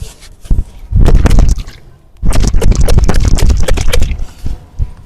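Hands working over a person's bare back in a massage: a dense run of rapid, crackly strokes on skin, about a second long, then a longer run of about two and a half seconds, with one sharp knock at the very start.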